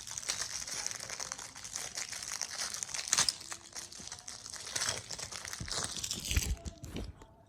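Packaging crinkling and rustling as the model airplane's stand is unwrapped from its box, with a few dull knocks near the end.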